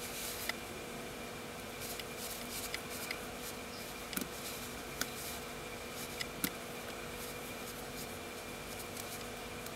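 Gloved hands handling a Parnis automatic wristwatch, with light fabric rustle and a few sharp, sparse clicks as the pulled-out crown is turned to set the hands. A faint steady hum runs underneath.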